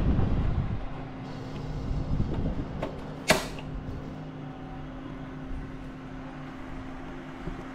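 Gas stove burner flame running steadily under tomatoes and a brinjal fire-roasting on a wire mesh, with one sharp click about three seconds in.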